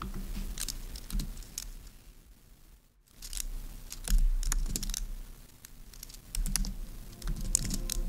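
Typing on a low-profile computer keyboard: irregular key clicks in quick runs, with a short pause about two and a half seconds in before the typing picks up again.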